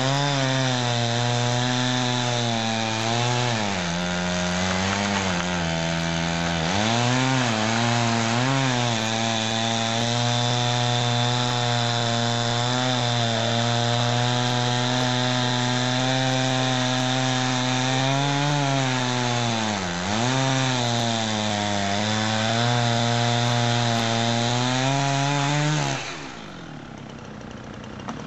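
Chainsaw running at full throttle and cutting through wood, its pitch dipping and recovering repeatedly as the chain loads up in the cut. Near the end it drops back to idle.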